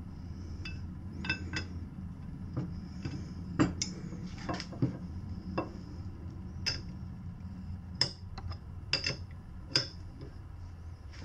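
Steel sockets, breaker bars and wrenches clinking and knocking against each other and against a motorcycle rear sprocket's bolt and nut as they are fitted and turned, about a dozen irregular sharp clinks over a steady low hum. This is the last of six sprocket bolts being tightened through a set angle.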